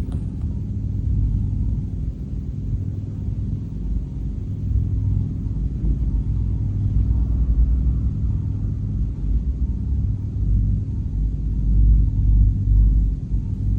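An engine running with a steady low rumble and a constant hum. A single click sounds right at the start.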